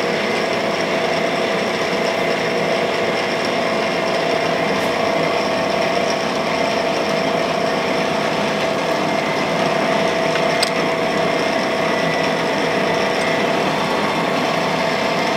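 Cam grinder running steadily: an even machine hum with a constant whine, unchanging throughout.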